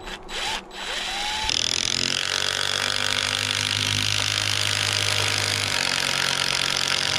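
DeWalt 20V cordless drill driving into a wooden beam. It gives a short burst, then runs steadily under load with a motor hum and a high whine.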